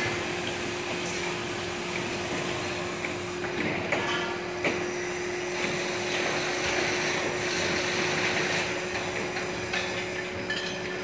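Heavy construction machinery engines running with a steady drone and hum, and a few sharp metallic knocks about four and five seconds in.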